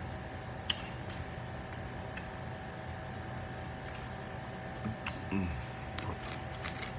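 Steady room hum with a constant thin high tone running through it. A sharp click comes about a second in, and a few softer clicks and a short low knock follow near the end as a plastic soda bottle is handled.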